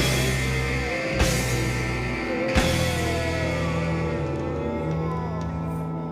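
Instrumental outro of a garage rock song: sustained electric guitar chords with a bending lead guitar line over the top, punctuated by three drum hits in the first three seconds, slowly getting quieter.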